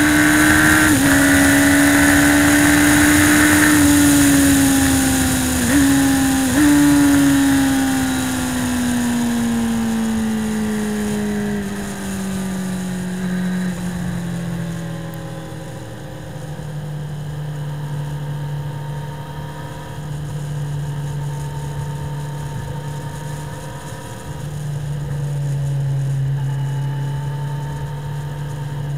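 Yamaha YZF-R1 998 cc inline-four engine pulling at high revs with heavy wind rush, dipping briefly a few times. The revs then fall steadily over about ten seconds as the bike slows, and the engine settles into a lower steady note while the wind noise dies away.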